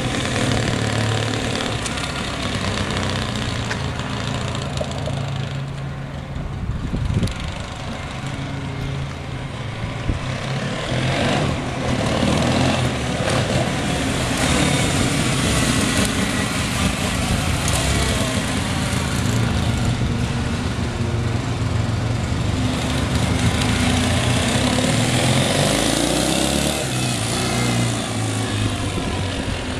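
1971 Yamaha XS1B 650 cc parallel-twin four-stroke motorcycle engine running as the bike is ridden around, its note rising and falling with throttle and distance.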